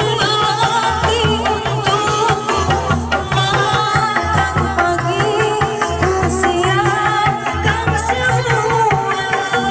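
Live Sundanese traditional music: a sinden's wavering, ornamented singing over a steady pattern of hand-drum beats and melodic accompaniment.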